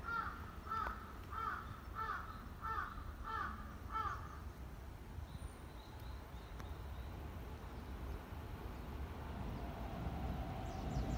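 A bird calling seven times in an even series, about three calls every two seconds. Near the end, the rumble of an approaching Keikyu Line train starts to rise.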